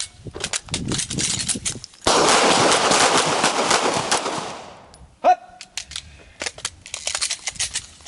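Handguns firing in quick, uneven strings of shots during a stress drill, several shooters overlapping. The shots stop for a couple of seconds, with a steady rushing noise in the gap, and start again about five and a half seconds in.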